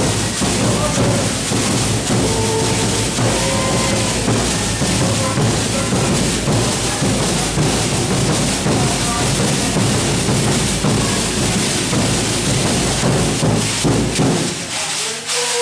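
Afro-Brazilian congado (Moçambique) music: a group of voices singing over drums and a dense, steady shaking of metal rattles such as patangome discs. The drums and rattles stop about fifteen seconds in, leaving the voices.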